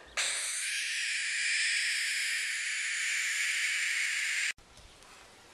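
Juvenile barn owl giving one long, harsh hiss of about four seconds that cuts off abruptly; it is the defensive hiss of an upset owlet, unhappy at being handled.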